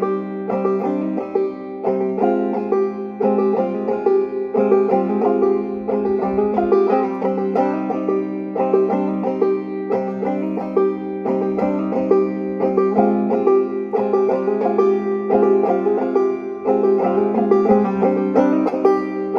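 Banjo played clawhammer style: a steady, rapid run of plucked notes rolling over a held low note that sounds all the way through.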